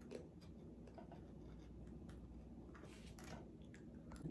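Faint, scattered crackly clicks of crispy air-fried pig's ear (tenga ng baboy) being eaten, several sharp ticks a second or so apart over a low hum.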